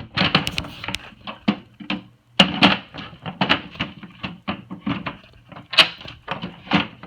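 Hard plastic clacks and knocks as an L-BOXX toolbox is handled and pushed onto plastic base-mounting clips, a quick irregular run of sharp knocks. The loudest come about two and a half seconds in and again just before six seconds.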